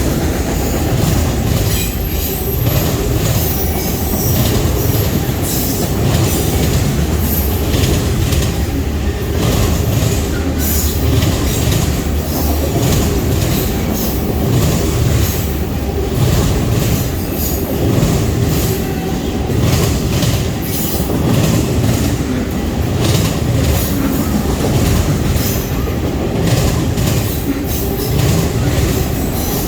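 Train cars rolling past close by: a steady, loud rumble with wheels clacking regularly over the rail joints.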